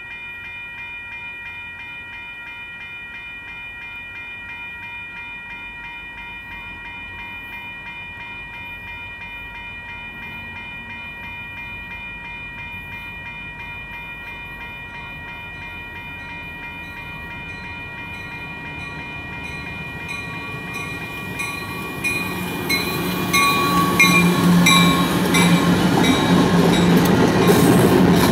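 A railroad grade-crossing warning bell rings steadily as a Union Pacific diesel freight train approaches. From about 22 seconds in, the locomotive and its cars pass close by, and the train's rumble and wheel noise grow loud over the bell.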